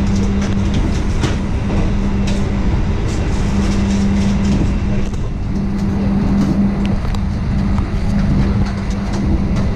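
Running noise of a moving passenger train heard inside the carriage: a steady low rumble with a constant low hum and a few light clicks.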